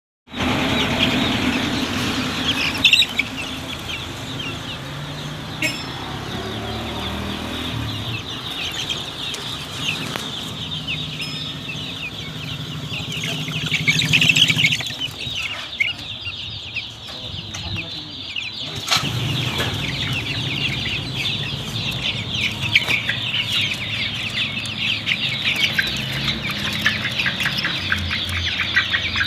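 A brood of young chicks, ten to twenty days old, peeping in many overlapping high cheeps, with no let-up.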